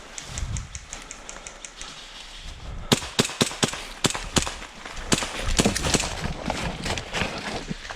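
Airsoft gunfire. About half a second in there is a faint rapid burst of evenly spaced shots, and from about three seconds in a string of loud, sharp, irregular cracks.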